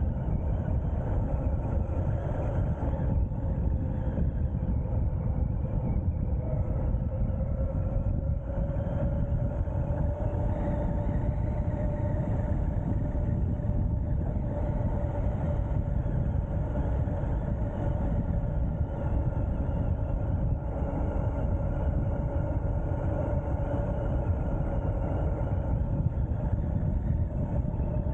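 Wind rushing over the microphone and tyre noise from an Ariel Rider X-Class 52V electric bike riding at speed, with a steady electric motor whine above it that rises slightly about eight seconds in and then holds.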